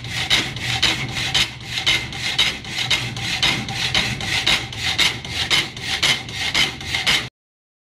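Homemade electric power hacksaw cutting through square steel tubing, its blade rasping back and forth in even strokes about twice a second over a low steady hum. The sound cuts off suddenly near the end.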